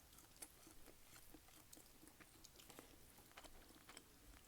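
Faint chewing: soft, irregular clicks and smacks of a mouth eating food close to the microphone.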